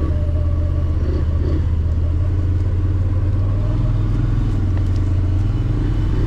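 Side-by-side UTV engine running at a slow crawl, a steady deep drone that rises a little in pitch about four seconds in, then settles back.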